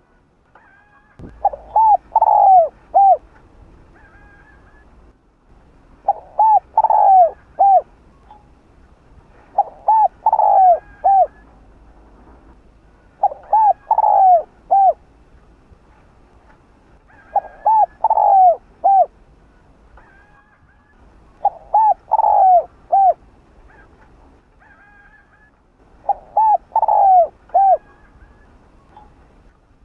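Spotted dove (Streptopelia chinensis) cooing: seven short phrases of three or four notes, about one every four seconds.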